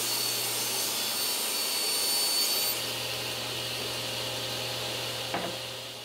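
Table saw cutting through 3/4 inch plywood with a steady motor hum; the cut finishes about two and a half seconds in and the blade runs on free, a little quieter. A light knock near the end as the cut panel and offcut are lifted away.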